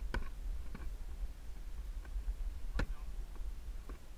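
Light clicks and knocks of fishing gear and a landing net being handled on a plastic kayak, about six scattered through, the sharpest nearly three seconds in, over a steady low rumble.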